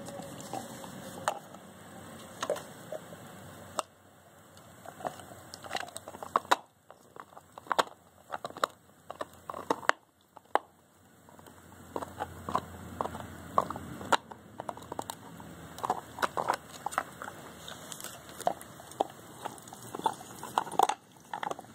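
A dog gnawing a bone: irregular crunching and cracking bites in quick clusters, with a few short pauses.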